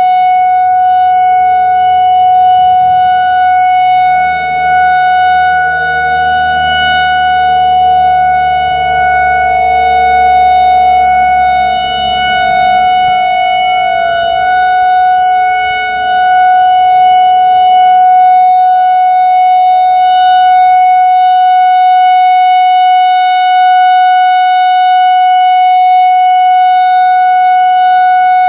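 Whelen WPS-4004 electronic outdoor warning siren sounding a steady, unwavering tone during its monthly test. The loudness dips briefly a few times while the pitch holds. A low rumble underneath fades out about halfway through.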